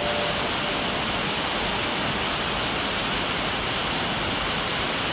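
Waterfall cascading over stepped rock ledges: a steady, even rush of falling water.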